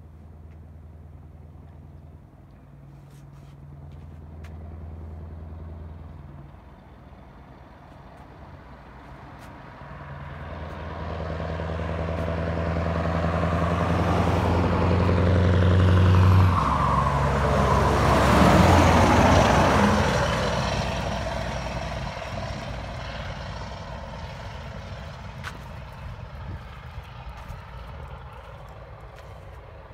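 Scania T164 580 truck's V8 on loud exhaust pipes, running under load as it approaches. The note dips twice, then grows steadily louder to a pass-by just past halfway, where the pitch sweeps down, and fades away afterwards.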